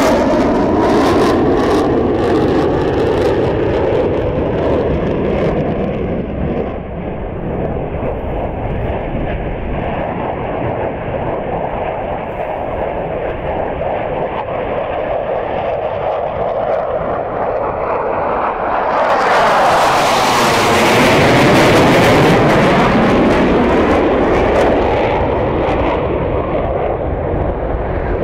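Jet noise from a pair of MiG-29 fighters, each with twin RD-33 turbofans, flying past in formation. The steady jet noise carries slow sweeping whooshes in its pitch. It swells louder and harsher from about two-thirds of the way through as the jets pass closest, then eases off a little.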